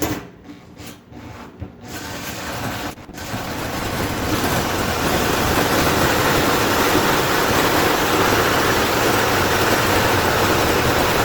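Power drill driving a hole saw through the wall of a gas tank. After a few short starts it runs into a steady, loud cutting noise that builds over a few seconds and stops abruptly at the end.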